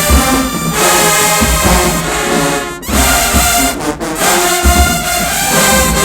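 HBCU marching band's brass section playing loud sustained chords over bass drum hits, with short breaks about three and four seconds in.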